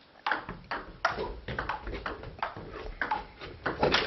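Table tennis ball clicking off bats and table in a rally, a sharp tick every few tenths of a second starting about a quarter-second in.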